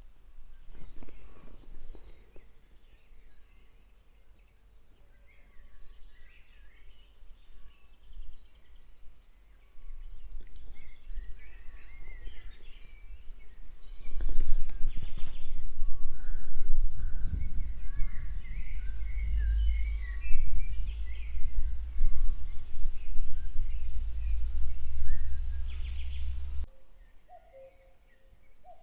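Songbirds chirping and singing in the trees beside the tracks. An irregular, gusting low rumble of wind on the microphone grows loud about halfway through and stops abruptly near the end.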